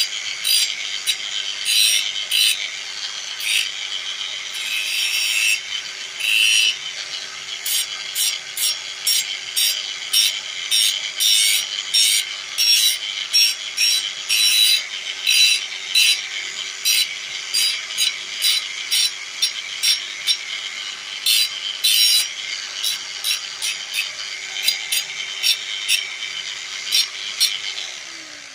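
Bosch angle grinder running at a steady speed while a small part is pressed against its disc again and again, giving many short, harsh grinding strokes over the motor's hum. Near the end it is switched off and the motor winds down, its pitch falling.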